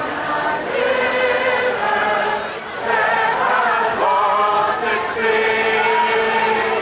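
A large crowd singing a hymn together, many voices holding long notes in unison, in phrases a second or two long.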